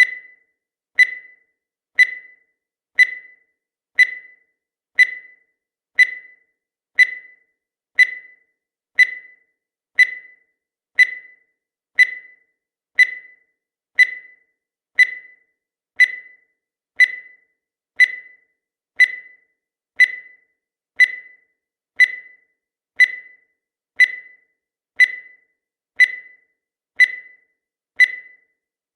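Countdown timer sound effect: a short, sharp high-pitched tick once every second, evenly spaced, each dying away quickly.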